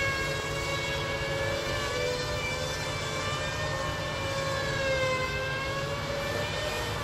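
A stuck tow truck revving with its drive wheels spinning in deep snow, giving a steady high whine over a low engine rumble; the whine wavers and dips briefly in pitch about five seconds in.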